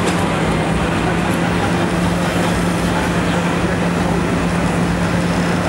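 Link-Belt 250 X4 excavator's diesel engine and hydraulics running steadily under a constant hum, with no change in pitch.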